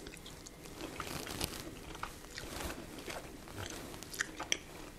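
A person chewing a peeled boiled shrimp dipped in sauce: faint, soft mouth sounds, with a few small clicks about four seconds in.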